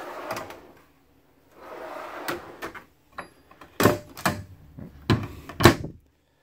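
Wooden cabinet drawer on metal ball-bearing slides pulled out and pushed back in, two rolling, rushing slides, then wooden cabinet doors shut with four sharp knocks in the second half.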